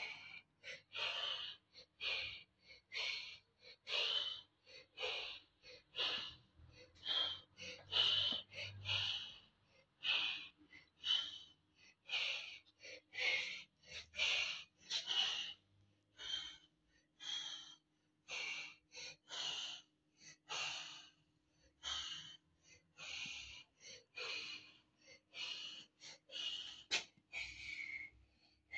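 Heavy breathing close to the microphone: short breathy puffs in and out, repeating about once or twice a second, over a faint steady hum.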